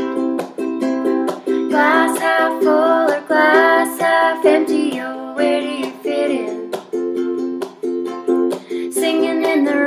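Ukulele strummed in a steady rhythm as a song's introduction. A high wordless vocal melody with vibrato joins about two seconds in, drops out around the middle, and comes back near the end.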